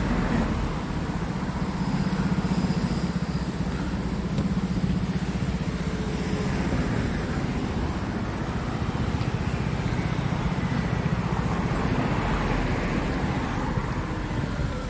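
Steady road traffic noise, with a low engine rumble from motor vehicles running close by.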